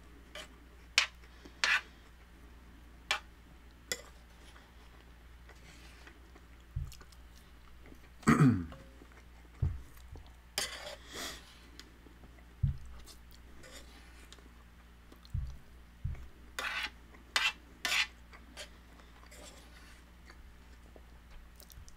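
A spoon scraping and tapping rice across a metal sheet pan, with chewing and scattered clicks and low knocks. About eight seconds in there is one loud, short sound that falls in pitch.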